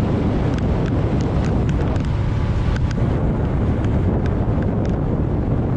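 Outboard motor of a small fishing boat running at speed, with heavy wind buffeting the microphone and a steady low hum.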